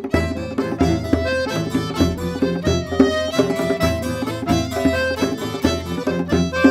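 Instrumental background music: a tune of quick, separate notes.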